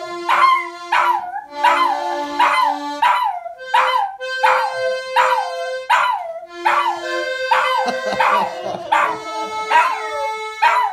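A small dog howling along to a button accordion: a run of short yowls, each dropping in pitch, about two a second, over the accordion's held notes.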